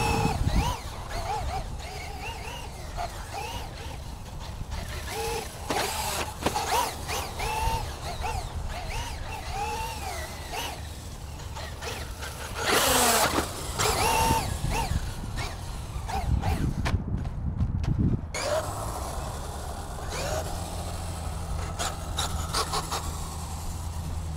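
Traxxas UDR radio-controlled truck's brushless electric motor whining up and down in pitch as it is throttled on and off, with tyre and dirt noise, louder on a pass about 13 seconds in.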